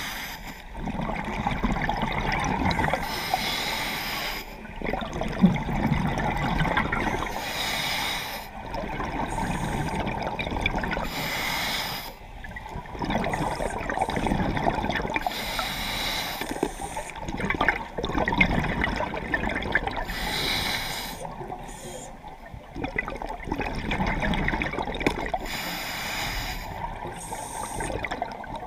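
Scuba diver breathing through a regulator underwater: a hiss on each inhalation about every four to five seconds, with gurgling bursts of exhaled bubbles in between.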